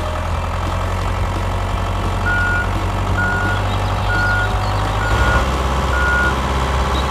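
Dubbed-in vehicle engine sound running steadily, with a reversing alarm beeping five times, about once a second, from about two seconds in.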